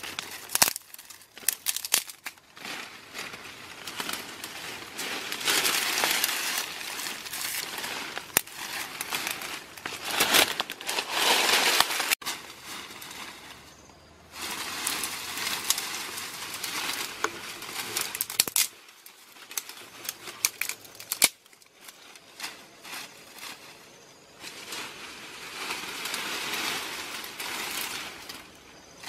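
Dry grass stems, twigs and leaves crackling and rustling as a person pushes through undergrowth and pulls at the plants, coming in spells with short quieter gaps.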